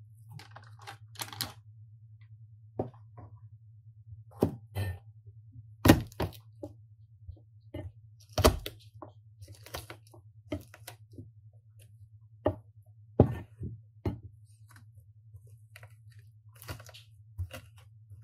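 Chef's knife and food knocking on a plastic cutting board: scattered, irregular knocks and taps, a few of them sharp and loud, over a steady low hum.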